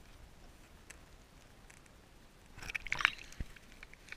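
Brief burst of small water splashes and crackles close to the microphone about three seconds in, followed by a single dull knock. Otherwise faint.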